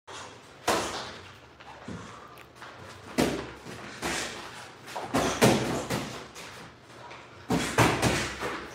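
Boxing gloves landing punches in sparring: a series of sharp smacks and thuds, with quick clusters around three seconds in, about five seconds in, and near the end.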